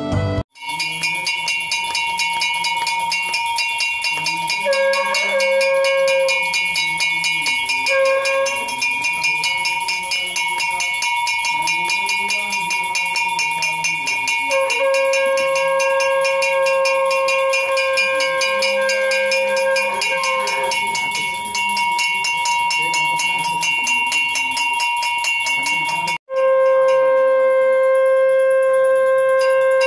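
Temple aarti: a bell rung rapidly and without a break, with a conch shell blown in long steady blasts. The conch sounds briefly about 5 and 8 seconds in, again for several seconds around the middle, and steadily over the last few seconds. A low tune rises and falls underneath.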